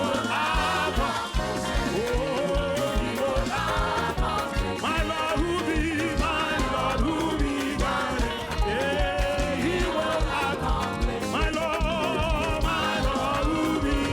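Ghanaian gospel praise music: upbeat band with a steady dance beat and singing voices, with warbling, wavering vocal lines.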